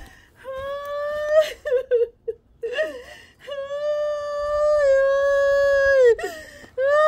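A high-pitched voice crying and wailing: three long held cries with short sobbing breaks between them. The middle cry is the longest, about two and a half seconds, and sags in pitch at its end.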